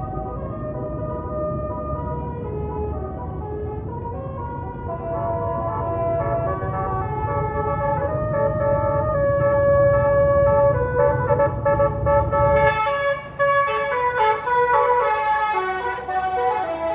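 A tour bus's basuri musical air horn playing a tune of held notes that step from pitch to pitch over the bus's running engine. The engine rumble drops away about 13 seconds in while the horn notes carry on.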